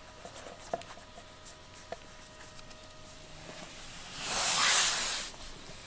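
A cat hissing once: a single breathy hiss that swells and fades over about a second, a little past the middle.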